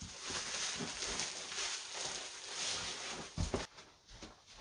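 White plastic sacks of threshed buckwheat rustling as they are handled and lifted, followed by a dull thump about three and a half seconds in.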